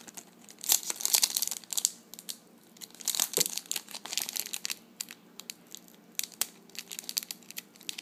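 Foil wrapper of a trading-card pack crinkling and tearing as fingers work it open, in two loud bouts of rustling about a second and three seconds in, then scattered small crackles.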